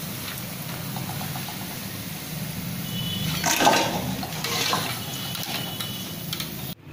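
Besan pakoda strips sizzling as they deep-fry in hot oil in a kadhai. A metal slotted spoon stirs and scrapes through the oil, loudest about three and a half seconds in and again near five seconds. The sound cuts off suddenly near the end.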